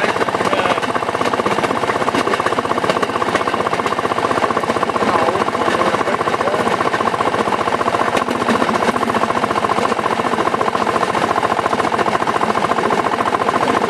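Rail section car (speeder) running along the track, its small engine putting out a fast, steady stream of pulses.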